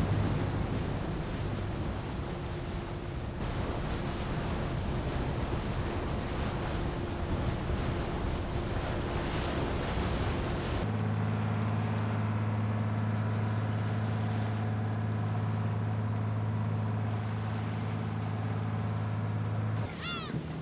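Passenger ferry under way: wind and water rushing past, with wind buffeting the microphone. About halfway through, a steady low hum of the ferry's engine takes over, ending just before a few brief high squeaks near the end.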